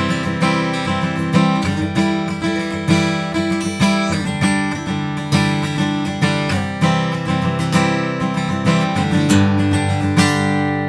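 Gibson J-45 True Vintage acoustic guitar, solid Adirondack spruce top with solid mahogany back and sides, strummed in a steady rhythm of chords, ending on a final chord left to ring out near the end.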